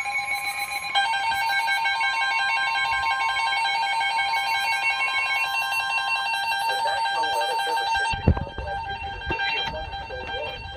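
Emergency Alert System warning tones from a weather radio's speaker: a loud, steady, multi-pitch alert tone that fades about eight seconds in, followed by a single thump and faint room sounds.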